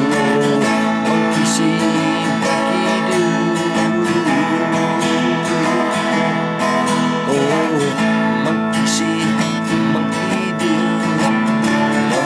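Twelve-string acoustic guitar strummed steadily in the key of A.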